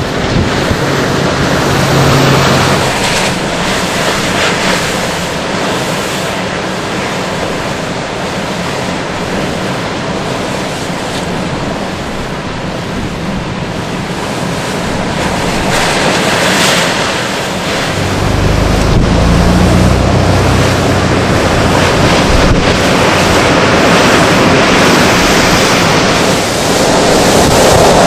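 Hurricane-force wind and heavy storm surf crashing against the shore, a continuous loud rush. About two-thirds of the way through, gusts start buffeting the microphone with a heavier low rumble.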